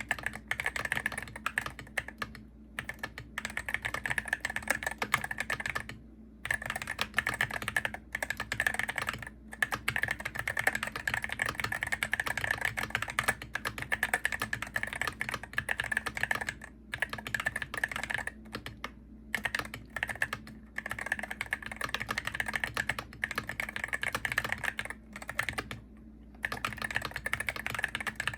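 Fast, continuous typing on a Hero68HE gaming keyboard, with rapid key clicks broken by brief pauses every few seconds.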